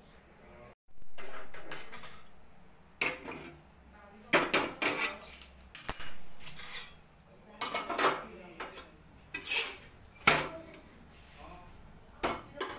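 Metal kitchen utensils clinking and knocking against an iron tawa and a gas stove while rotis are cooked, in a string of separate sharp clicks and clatters.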